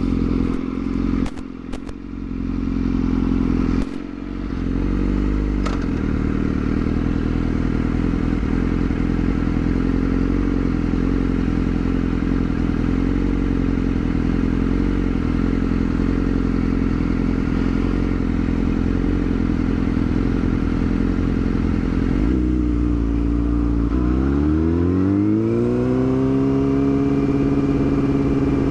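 Yamaha R6 inline-four sport bike engine running at a low, steady speed. Several knocks and thumps come in the first few seconds. Near the end the revs climb smoothly and then hold at a higher steady pitch as the bike accelerates.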